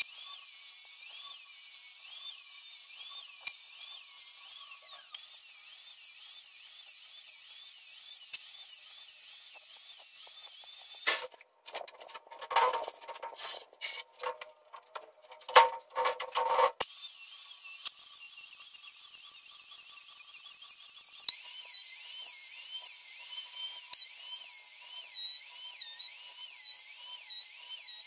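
Electric plunge router on a sled jig surfacing a wooden slab: a high whine that dips in pitch and recovers about twice a second as the bit is pushed through the cut. About halfway through it stops for several seconds of irregular knocks, then the routing starts again.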